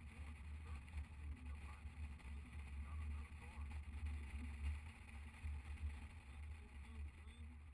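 Motorcycle riding noise at street speed: a steady low rumble of wind on the microphone with the engine running underneath.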